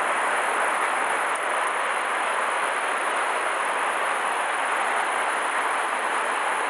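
Steady rushing of a fast-flowing river swollen with high water after a typhoon, an even hiss with no breaks.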